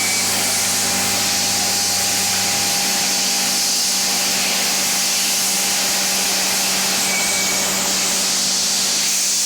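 CNC milling machine running, a steady strong hiss over a steady hum, with a faint low tone that stops about three seconds in.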